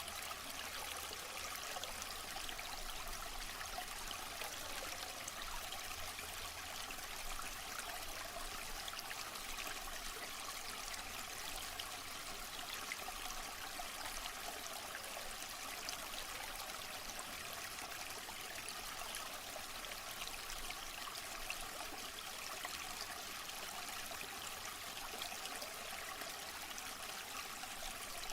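Waterfall: falling water splashing in a steady, unbroken rush, its sound mostly high and hissing.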